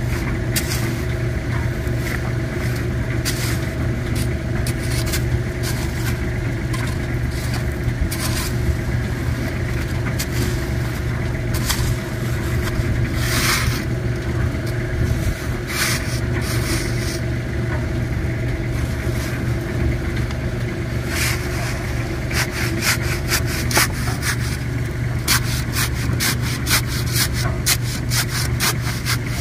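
Shovel blade scraping and jabbing into gritty backfill around a wooden fence post, the strokes coming quick and close together in the last several seconds. A steady low engine hum runs underneath.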